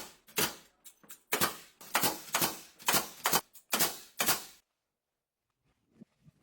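A series of sharp knocks or bangs with a short ring after each, about two a second, stopping about four and a half seconds in; a few faint ticks follow near the end.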